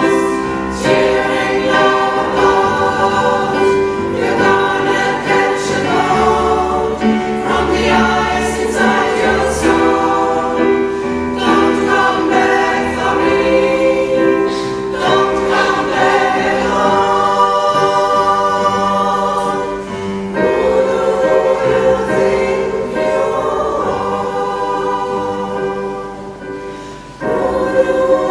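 Women's choir singing a pop song in multi-part harmony, going quieter just before the end and then coming back in at full strength.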